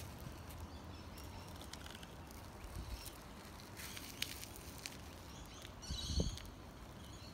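Quiet outdoor background with a steady low rumble and scattered faint clicks and rustles, and a brief high-pitched sound about six seconds in.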